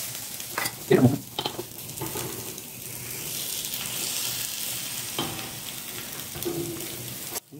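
Steady sizzle of food frying in a pan, with a few sharp knocks and rustles from hands handling a wrap about a second in. The sizzle cuts off abruptly just before the end.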